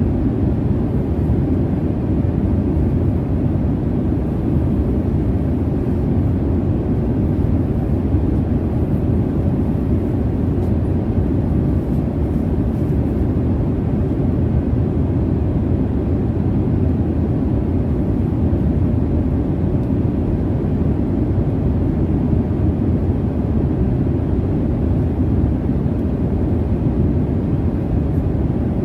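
Steady jet airliner cabin noise in cruise: an even, deep rush of engine and airflow sound, with no changes or events.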